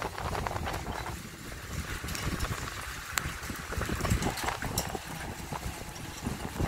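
Gusty storm wind buffeting the microphone, with scattered sharp clicks and crackles through it, one sharper click about three seconds in.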